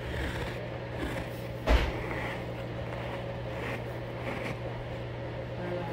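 A handheld pet hair remover scraped across carpet in repeated strokes, a soft rasping swish with each pass, over a steady low hum. A single thump about two seconds in.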